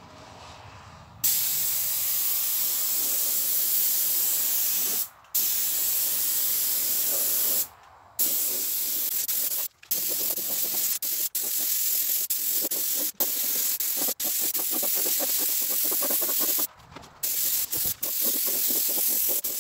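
Small compressed-air spray gun spraying primer: a loud, even hiss that starts about a second in and stops briefly several times as the trigger is let off between passes.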